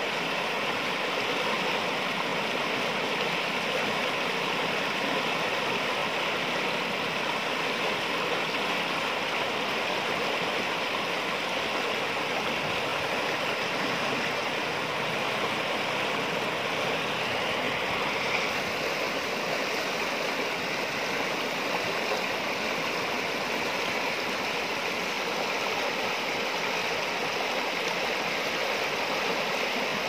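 River rapids rushing and churning over boulders: a steady, unbroken roar of whitewater.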